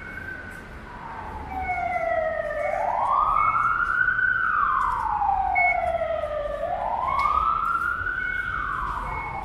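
Siren wailing, its pitch rising quickly and falling slowly in cycles of about four seconds. It grows louder over the first few seconds.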